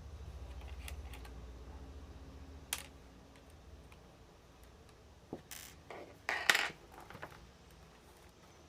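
Small metallic clicks and clinks of laptop screws and a screwdriver being handled on a work surface, a few separate knocks with the loudest a little past the middle, after a faint low buzz for the first couple of seconds.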